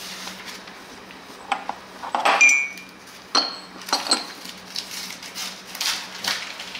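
Cutlery and dishes clinking together in a handful of separate knocks, the loudest about two and a half seconds in with a short ring.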